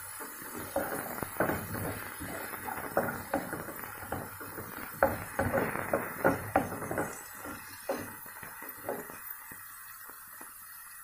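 Wooden spatula scraping and knocking against a nonstick frying pan as chopped vegetables are stir-fried, in irregular clatters that die down near the end.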